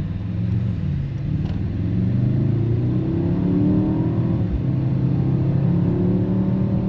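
Mercedes-AMG GLE 63 S twin-turbo 4.0-litre V8 accelerating hard, its pitch climbing, dropping briefly about four and a half seconds in, then pulling steadily on.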